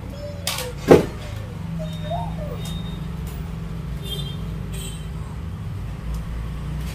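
A sharp knock about a second in, from trophies being handled in a wooden display cabinet with glass shelves, over a steady low hum.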